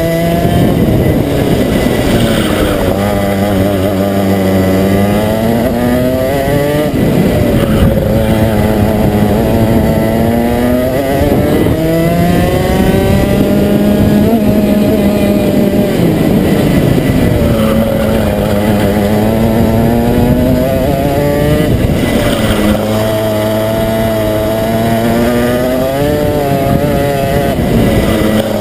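Rotax single-cylinder two-stroke kart engine at racing speed, heard close up from on board the kart. Its pitch climbs hard on the straights and drops back as the driver lifts for each corner, over and over.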